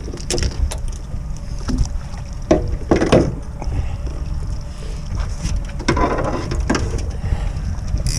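Steady low rumble of a fishing boat on the water with wind on the microphone, broken by a few brief knocks and handling noises about three seconds in and again around six seconds.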